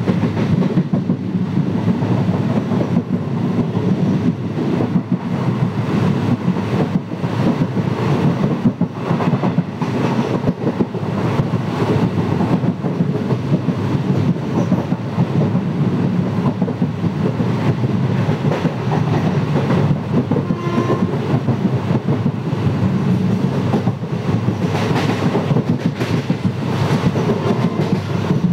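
Express train coach running along the track at speed, heard from its open doorway: a steady rumble of wheels on rail with clickety-clack over the rail joints.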